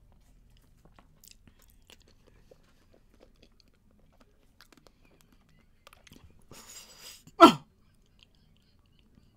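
Faint mouth and eating clicks, then about six and a half seconds in a hissing rush of breath followed by a loud, short vocal cry that falls sharply in pitch.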